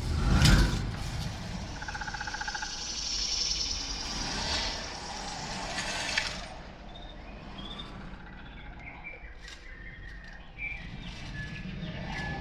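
Film audio played through a cinema's sound system: a deep bass boom at the start, whooshing sweeps for the first few seconds, then scattered short chirping sounds.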